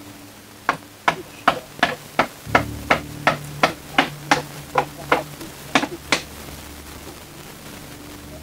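A basting brush tapped and dabbed repeatedly onto barracuda steaks on a wire mesh grill grate: about fifteen quick, sharp taps at roughly three a second, stopping about six seconds in. A steady low hum runs underneath.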